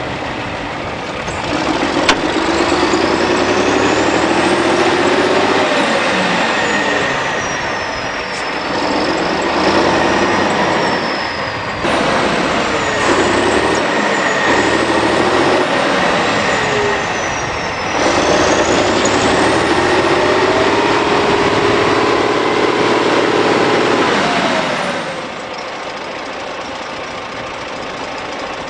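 Large Soviet wheeled tractor's diesel engine revving hard in several long surges, straining to pull the bogged SUV out of the mud. Its pitch climbs through each surge, with a high whine sweeping up and down. Near the end it drops back to a lower, steady run.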